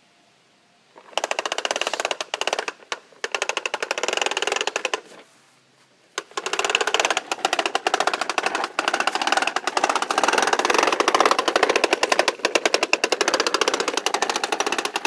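Toy push lawnmower clicking rapidly as its wheels turn, starting about a second in. It stops briefly a few times, then clicks steadily through the second half.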